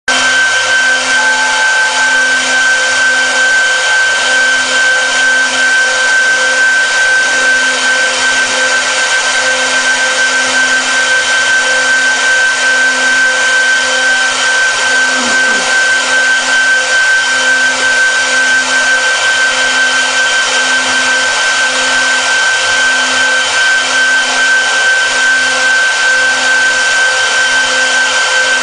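Four-spindle CNC router carving wood: the spindle motors run with a steady high-pitched whine over a constant hiss of the bits cutting the board.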